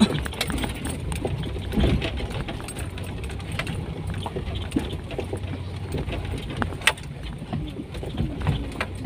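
Cabin noise of a lowered Toyota Kijang driving slowly over a rough dirt track: a steady low engine and road rumble with frequent short knocks and rattles as the car rides over the bumps.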